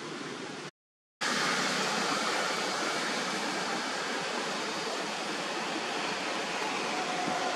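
Steady, even outdoor background hiss with no distinct events. It drops out for about half a second a second in, then comes back slightly louder.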